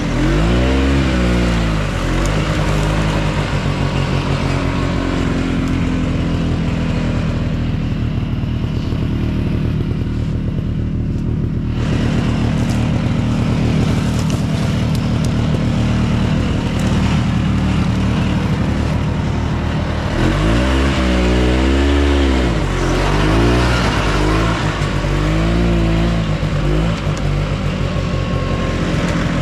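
Yamaha Bravo snowmobile's single-cylinder two-stroke engine running under way. The revs rise and fall with the throttle in quick swings at the start and again about two-thirds of the way through, with steadier cruising in between.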